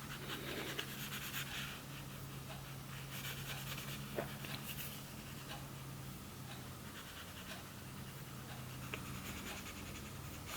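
Faint repeated scraping of a plastic card stroked across a new phone screen protector, pushing out trapped air bubbles, over a steady low hum.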